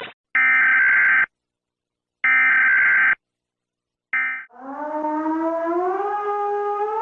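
Emergency alert tones: two steady one-second blasts a second apart and a third cut short, followed by a civil-defence siren starting to wind up, its pitch slowly rising.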